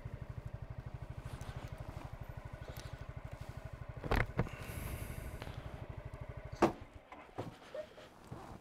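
Honda Forza 250 (MF17) scooter's single-cylinder engine idling with an even, rapid pulse. There are a couple of sharp knocks about four seconds in. Near the end the engine cuts off abruptly with a click, followed by a few small clicks.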